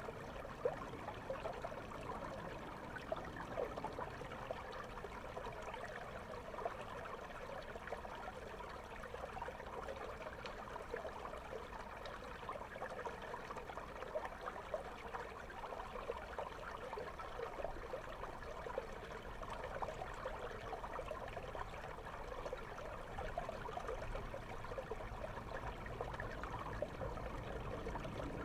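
River water flowing and bubbling over a stony bed, heard through a camera held underwater: a steady rush with a fine crackle of small ticks.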